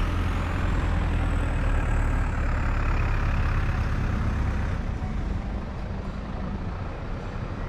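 Heavy road vehicle running close by: a low engine rumble with a faint high whine that rises and then fades. The rumble drops away about five seconds in.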